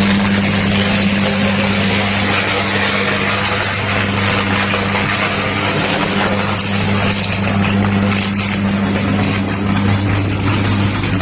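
Damaged electrical transformer arcing and burning: a loud, steady electric buzz with a dense hiss over it. The buzz holds a fixed pitch at twice the mains frequency, the mark of a sustained short-circuit arc still fed by live power.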